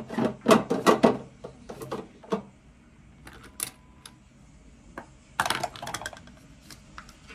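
Hard objects being handled, clicking and knocking: a quick run of sharp clicks in the first couple of seconds, a few scattered clicks, then another short cluster about five and a half seconds in.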